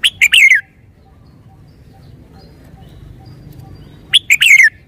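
Red-whiskered bulbul singing two short phrases about four seconds apart. Each phrase is a quick run of three notes, the last one falling in pitch.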